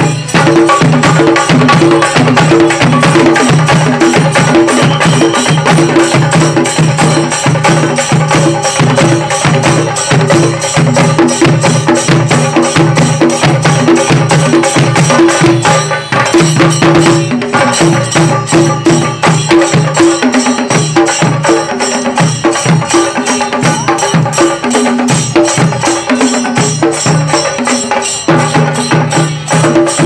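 Kerala chenda melam: several chenda barrel drums beaten fast with curved sticks, with small ilathalam hand cymbals clashing in time. A loud, dense, continuous rhythm.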